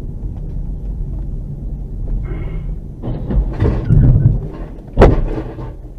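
A vehicle's interior road and engine rumble, with a rising rush about three and a half seconds in, then one loud, sharp crash about five seconds in: a collision between the car and the truck ahead or the underpass.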